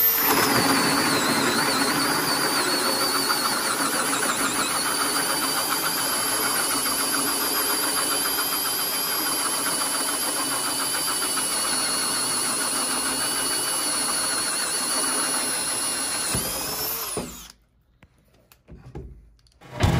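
Cordless drill driving a Bosch carbon-arbored hole saw through a wooden board: a steady motor tone over the noise of the cut. About sixteen seconds in, the trigger is released and the motor winds down to a stop.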